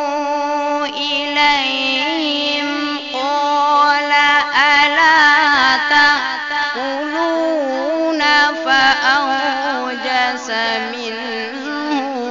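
A male qari chanting Quran recitation in one long ornamented melodic line, the voice holding notes and bending and wavering through them.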